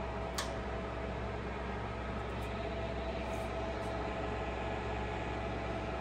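Rigiva universal milling machine running with its table on longitudinal power feed: a steady mechanical hum with a fixed whine from the feed drive. A single click about half a second in.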